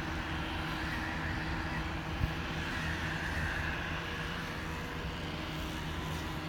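Large mobile crane's diesel engine running steadily, a low hum with a few held tones, while it holds a suspended satellite dish reflector; a single brief thump about two seconds in.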